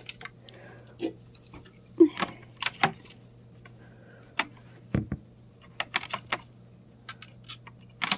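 Scattered light clicks, taps and scratches of baby raccoons scrabbling about on a doormat and doorsill, with one duller thump about five seconds in, over a steady low hum.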